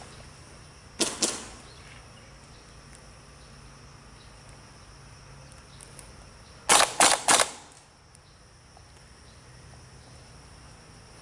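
Airsoft guns firing: two quick shots about a second in, then a fast string of about four shots near the seven-second mark.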